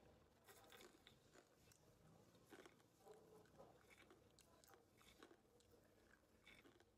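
A person chewing crunchy roasted cashews and crispy fried green peas with a mouth close to the microphone: faint, irregular crunches.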